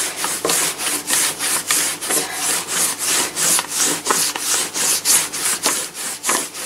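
A rolling pin rolled quickly back and forth over floured pizza dough on a wooden board, an even rubbing rhythm of about three strokes a second.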